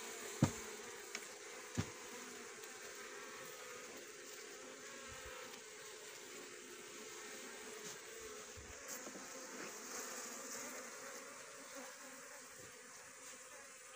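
Colony of Asian honey bees (Apis cerana) buzzing steadily in an opened hive box, with two sharp knocks in the first two seconds.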